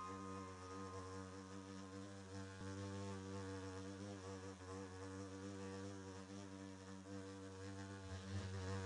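Housefly buzzing in a steady drone, one low pitch with many overtones, getting louder near the end.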